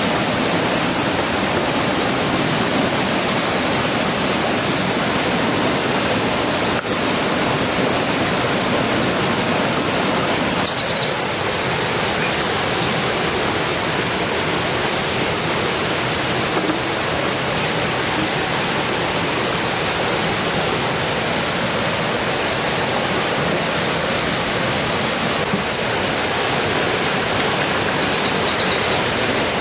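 Steady heavy rain, an even, unbroken hiss of falling water.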